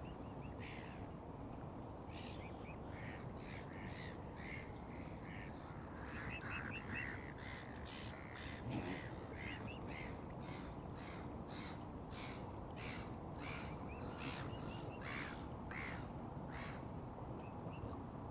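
Birds calling over and over in short calls, crowding together from about a third of the way in, over a steady background noise.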